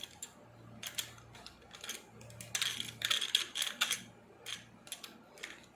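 Irregular light clicks and short rattles of a spinning reel and the rod's reel seat being handled as the reel is fitted onto the rod, with a denser clatter about two and a half to three and a half seconds in.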